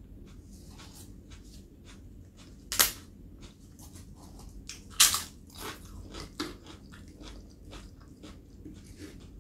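Close-miked chewing with small crunches, and crisp roasted papad snapping: two loud sharp cracks, the first about three seconds in and the second two seconds later.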